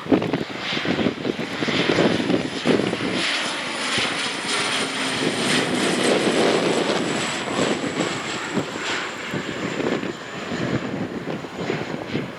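Airliner engines running as an aircraft passes, with a thin high whine that slowly falls in pitch. Wind buffets the microphone throughout.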